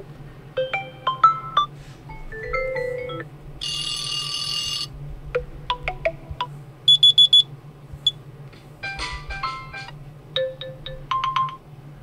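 OnePlus 12 ringtone previews played through the phone's speaker one after another, about seven in turn, each cut off after a second or so. They are short runs of bright chiming notes, with a dense ringing burst about four seconds in and four quick high beeps a little after seven seconds.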